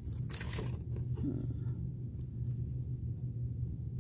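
Clear plastic stamp packaging crinkling as it is handled, in two short rustles in the first couple of seconds and then a few faint ticks, over a steady low hum.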